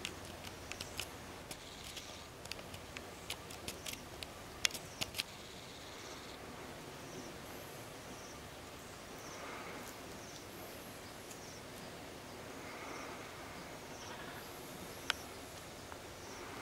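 Quiet outdoor ambience: a steady low background with faint high chirps repeating about once a second, and a run of sharp clicks in the first five seconds.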